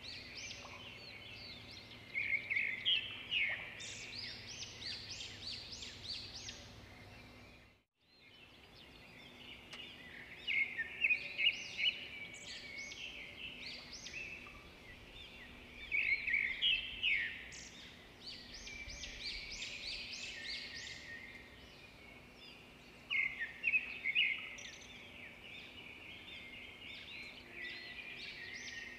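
Several songbirds singing at once, a dense chorus of overlapping chirps and trills. The sound cuts out briefly about eight seconds in, then comes back.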